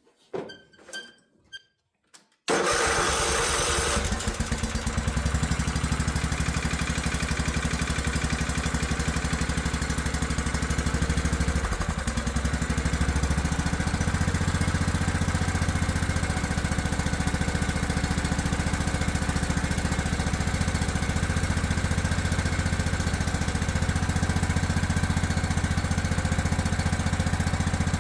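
Craftsman riding mower engine, fitted with a freshly cleaned carburetor, starting abruptly about two seconds in and then running steadily.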